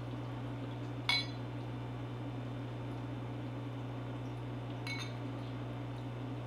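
A glass bottle clinks against a wine glass twice, about a second in and again near five seconds, each with a short glassy ring, as mead is poured into the glass. A steady low hum runs underneath.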